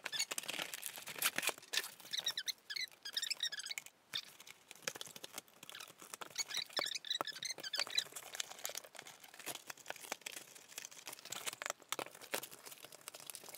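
Cardboard and plastic packaging of a toy blaster box being cut open with scissors and pulled apart: scattered snips and clicks, with two spells of crinkling and rustling, about two to three seconds in and again around seven seconds in.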